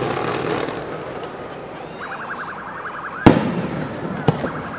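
Fireworks: a dense hissing spray from ground-level fountain effects, then a loud sharp shell burst a little past three seconds in and a smaller one about a second later. A rapidly pulsing beep sounds twice, once shortly before the big burst and once near the end.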